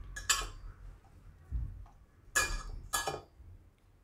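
Fingers pressing soft Oreo-biscuit dough into a plastic modak mould: three brief rubbing, handling sounds, one just after the start and two close together in the second half.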